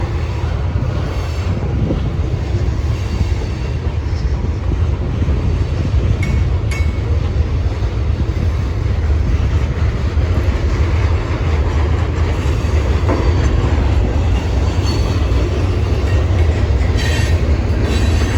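A train rolling past with a steady, heavy low rumble. A faint high wheel squeal comes in near the end.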